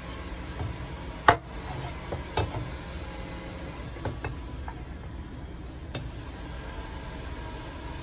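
Knife knocks on a wooden chopping board while a mackerel is cut: one sharp knock about a second in, a second one a second later, then a few lighter taps, over a steady low background rumble.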